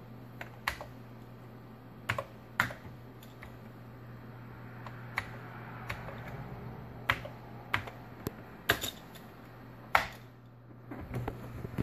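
Commodore 64 keyboard keys clicking one at a time as a command is typed, irregularly spaced, with a louder keystroke near the end as Return is struck to run the load.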